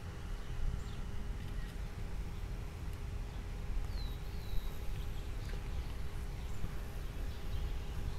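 Outdoor ambience with wind rumbling on the microphone and a faint steady hum underneath. A bird gives two short falling chirps about four seconds in.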